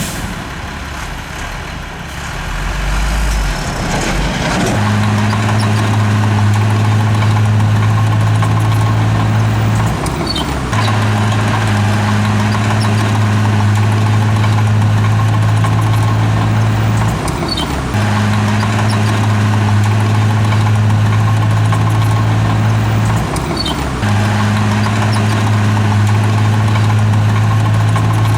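Heavy diesel engine of a bulldozer working hard, its deep note holding steady for stretches of about six seconds and dipping briefly between them, about four times.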